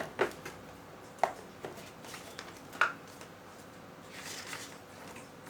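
Hand-handling of small motherboard accessories and their packaging: three light clicks or taps spread over the first three seconds, then a soft rustle about four seconds in.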